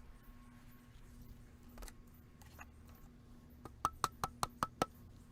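A hammer driving a garden bed stacking stake into the ground: a couple of single blows, then a quick run of about six sharp strikes near the end, each with a short metallic ring.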